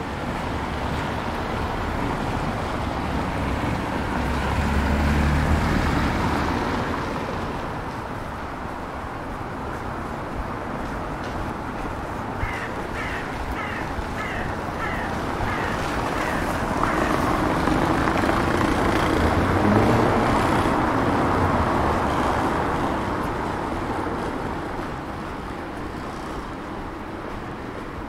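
Cars passing on a wet street, each swelling and fading, once a few seconds in and again past the middle. In between, a bird calls in a quick run of about eight short notes.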